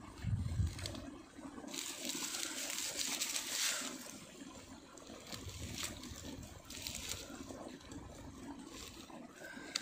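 Knife scraping and peeling the charred skin off a fire-roasted potato, with rustling of dry grass. A dull thump comes just after the start, and a longer hissing scrape runs for about two seconds shortly after.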